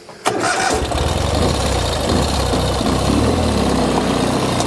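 Ural Ranger 750 sidecar's air-cooled flat-twin engine running steadily in a one-wheel-drive test. The engine sound cuts in abruptly about a quarter second in.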